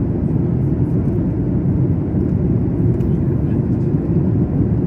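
Steady jet engine and airflow noise inside the cabin of a Boeing 737 airliner in flight, a deep, even drone.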